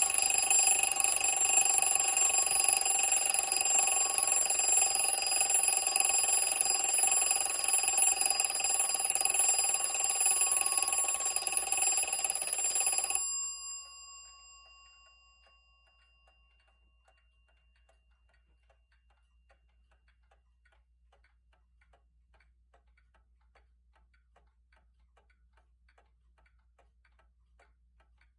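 Alarm of a circa-1891 Gilbert Leopard kitchen mantel clock ringing continuously, then stopping a little before halfway as the wound alarm spring runs down. The ringing dies away over a couple of seconds, leaving only the clock's faint, steady ticking.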